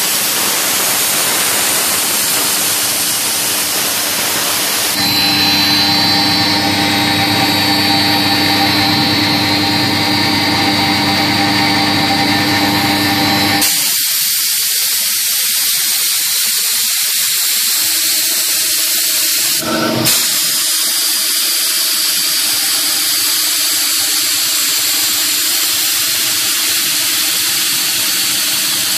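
CNC router spindle running with an engraving bit cutting lettering into composite sign material: a loud, steady hiss and whine. The sound changes abruptly about five seconds in and again near the middle, with a brief dropout about two-thirds of the way through.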